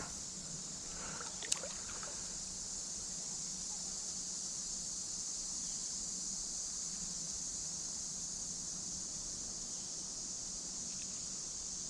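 Steady hiss of creek water running, with a single sharp click about a second and a half in.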